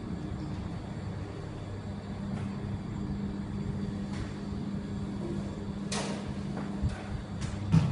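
Steady low hum inside an observation-wheel cabin, with scattered light clicks and knocks, the loudest one near the end.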